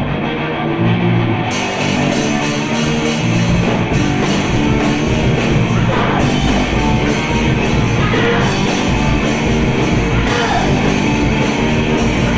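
Punk rock band playing live and loud: distorted electric guitars and drums, with cymbals filling in about a second and a half in and a voice singing in places.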